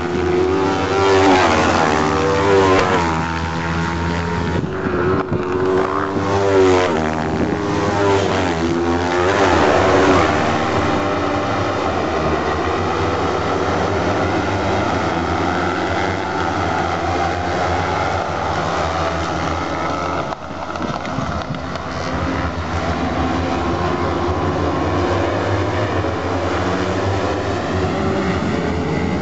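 Several racing buggies' high-revving engines, rising and falling in pitch as the cars accelerate and change gear through a dirt-track corner for the first ten seconds or so. After that the engines of a pack of cars run on in a steadier, denser drone.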